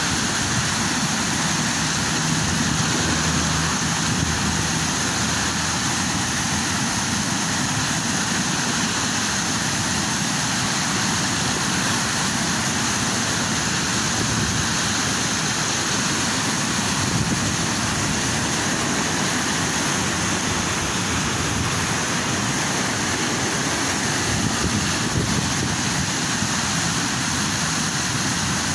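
Muddy floodwater rushing and churning through a concrete canal: a steady, loud, unbroken rush of turbulent water.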